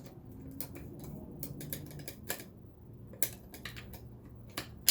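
Irregular light clicks and taps of parts being handled and fitted on a Kenmore 158-series sewing machine, with sharper clicks about three seconds in and near the end.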